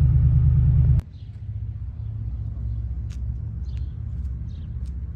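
Loud, steady low rumble of a truck driving. It cuts off abruptly about a second in, leaving a quieter low rumble with a few faint, short high chirps.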